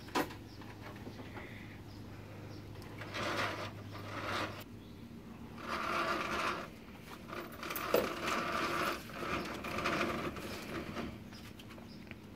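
Rope rustling and scraping as it is pulled through the hands and tied, in several short bouts, with a small click about eight seconds in.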